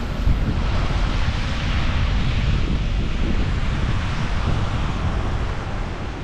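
Strong wind buffeting the microphone: a low, uneven rumble under a rushing hiss that swells for a few seconds in the middle.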